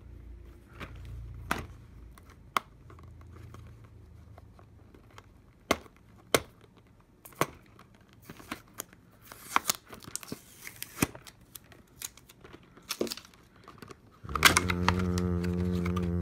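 Shrink wrap crinkling and tearing on a clear plastic Sharpie marker case, with scattered sharp clicks and snaps of the plastic case and marker caps as it is opened and handled. Near the end, a loud, steady low buzz lasts about two seconds.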